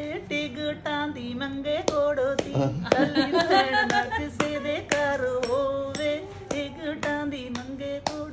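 A woman singing a Punjabi boli (folk verse) in long held notes, with hand claps keeping time about twice a second. Around three seconds in, the singing breaks into laughter, then picks up again.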